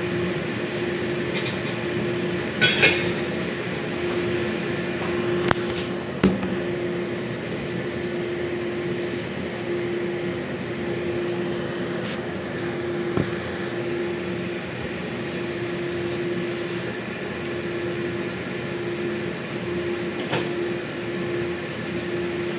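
Steady hum and hiss of stovetop cooking as something fries in sesame oil over a small flame, with a few sharp clicks of a utensil against the pan.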